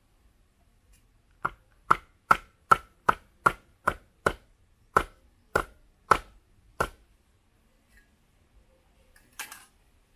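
Machete chopping a nipa palm fruit segment on a wooden chopping board: about a dozen sharp chops, two or three a second, then a short scrape near the end.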